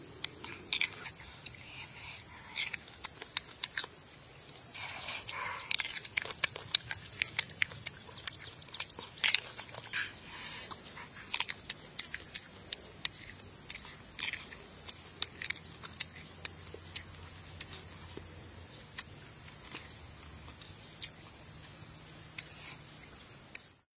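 Close-up crunching and chewing of a small, firm green fruit: irregular sharp crunches and wet mouth clicks, busiest a few seconds in. A steady, high-pitched insect trill runs underneath.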